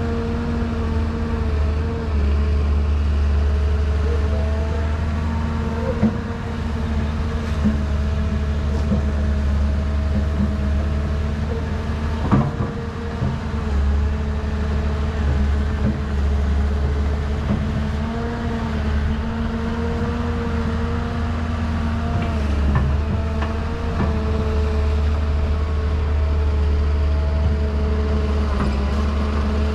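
Excavator machinery running steadily, a continuous motor hum whose pitch wavers slightly, with a few sharp clicks or knocks along the way, the clearest about twelve seconds in.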